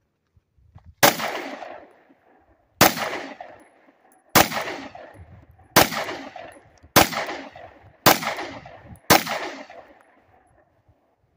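Seven 9mm shots from a Glock 43 pistol, the first few about a second and a half apart and the last ones coming about a second apart, each trailing off in an echo.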